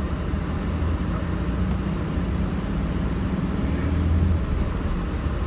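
A truck's engine and road noise heard from inside the cab while driving: a steady low rumble.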